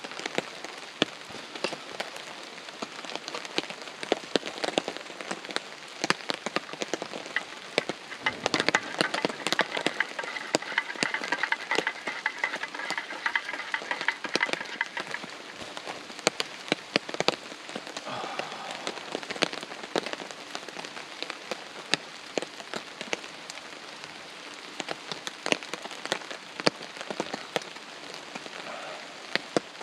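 Heavy rain falling on a tarp shelter, a dense, uneven patter of sharp drop hits over a steady wash of rain noise.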